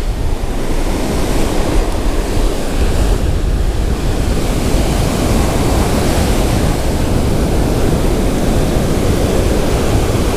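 Ocean surf breaking and washing up a sand beach, a steady rush, with wind buffeting the microphone.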